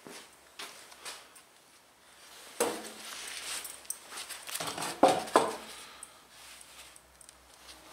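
Wooden boards being handled: a few knocks and scrapes as a freshly cut board is picked up and set against another. The loudest knock comes about five seconds in.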